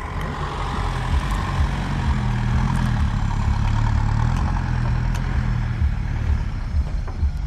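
Off-road 4x4 engine running under load in snow, its pitch rising a little and then holding steady, with uneven low knocks underneath.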